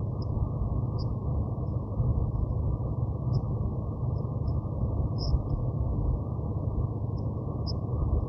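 Steady low rumble of a freight train rolling past, heard muffled through a vehicle's window glass, with faint short high chirps every second or so.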